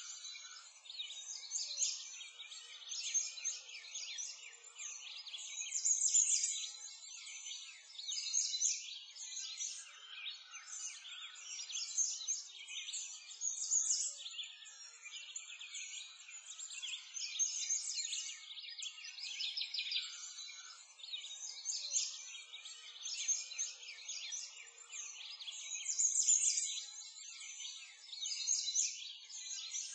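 Dense chorus of small songbirds, many overlapping chirps and trills going on continuously with no pauses.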